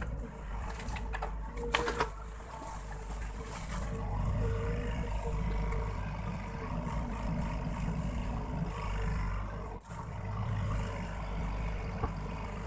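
Sany SY55C mini excavator's diesel engine running under load as the machine digs and swings, the drone swelling twice as it works. A few sharp knocks in the first two seconds.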